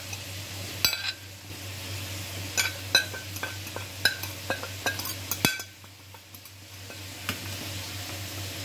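Metal fork scraping and tapping on a ceramic plate, knocking ground spices off it into a steel bowl: a run of sharp clinks, thinning out to quieter scraping after about five seconds.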